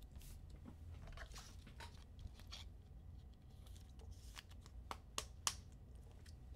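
Faint clicks and light rustling of trading cards and their packaging being handled, with a few sharper ticks in the second half.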